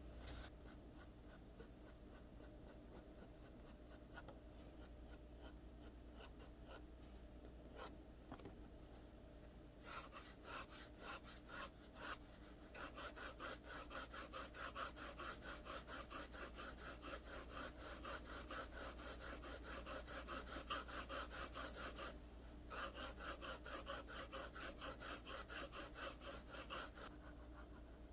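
Pencil drawing on paper: quick, even, scratchy strokes, about three a second, laying down long hair lines. Faint at first and louder from about a third of the way in, with a short pause about three-quarters through.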